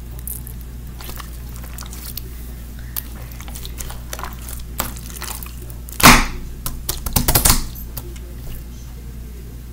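Hands kneading and squeezing a large blob of slime mixed with foam beads and glitter: small scattered crackles and clicks, with a loud squish about six seconds in and a quick run of louder ones just after seven seconds.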